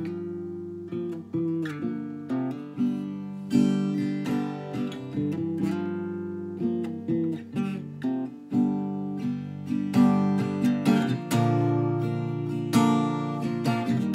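Acoustic guitar with a capo being strummed, chords ringing and changing every second or two, with some strums struck harder than others.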